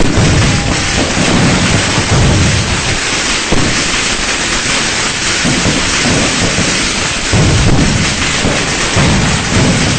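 Many firecrackers going off at once in a dense, continuous crackle, with low rumbling booms swelling and fading every second or two.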